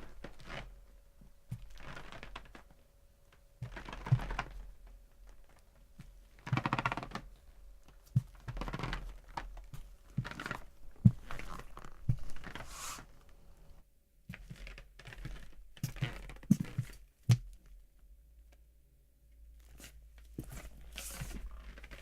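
Footsteps on a creaking floor: slow, irregular steps, each a dull knock with a drawn-out creak of the floor under the weight, with a couple of short pauses between steps.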